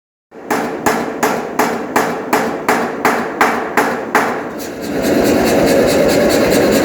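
Air power hammer (pneumatic forging hammer) striking heavy single blows at about three a second. From about five seconds in it runs continuously with faster, lighter strokes.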